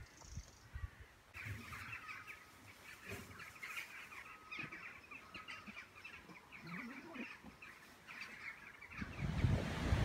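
Birds chirping and calling in many quick, overlapping notes, starting about a second in. Near the end, wind buffets the microphone with a low rumble.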